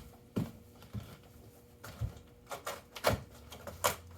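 A cardboard package being handled, giving a series of irregular taps, clicks and knocks, about half a dozen in four seconds.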